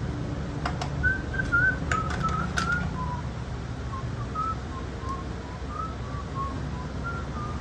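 A person whistling a tune, short notes stepping up and down, with a few sharp clicks in the first few seconds.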